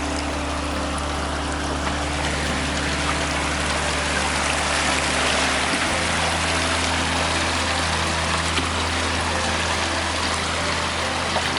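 Rushing, splashing water, swelling a little midway, under background music of slow, sustained low chords.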